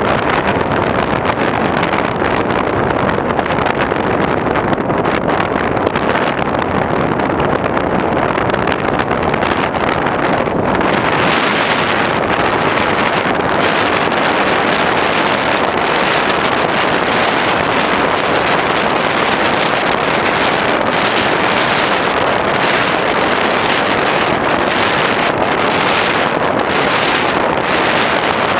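Steady rush of wind and motor noise picked up by a GoPro riding on an X8 flying wing in flight; the hiss turns a little brighter about eleven seconds in.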